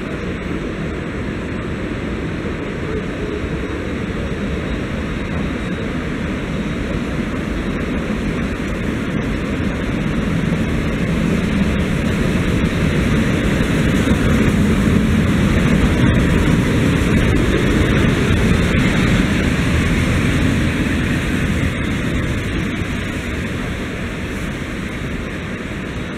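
Polish PKP EP07 electric locomotive running light past at low speed. Its steady running drone grows louder as it approaches, is loudest about halfway through as it passes, then fades as it moves away.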